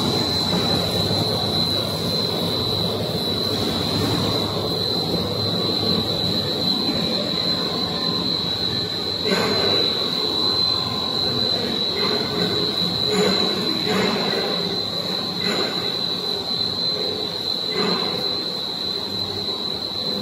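Core-filled pillow snack production machinery running: a steady machine din under a constant high-pitched whine, with a handful of brief clatters in the second half.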